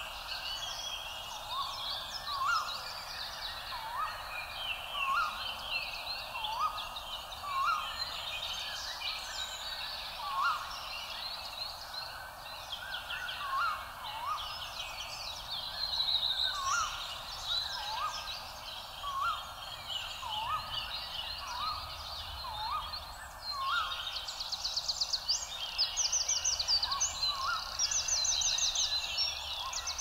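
A chorus of many songbirds chirping and singing, with a short upswept call repeated about once a second, and a fast, even trill joining in near the end.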